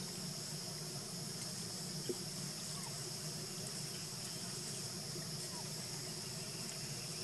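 Steady outdoor ambience: a constant high-pitched insect drone with a low steady rumble beneath it and a faint click about two seconds in.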